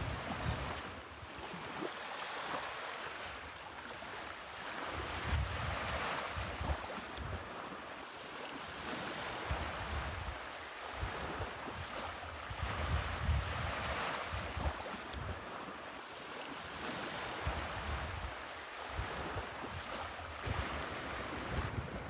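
Small waves washing onto the beach, swelling and falling back every few seconds, with wind gusting on the microphone.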